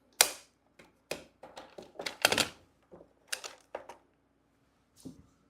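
Plastic magnetic building tiles clacking as they snap together and are set down: a string of irregular sharp clicks and knocks, the loudest just after the start and a little past the middle.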